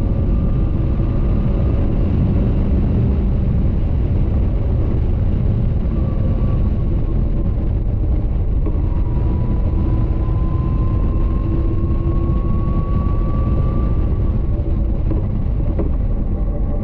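Caterham 620R's supercharged 2.0-litre four-cylinder running hard at speed, heard through heavy wind rumble in the open cockpit. In the second half the engine note climbs slowly for several seconds as the car accelerates.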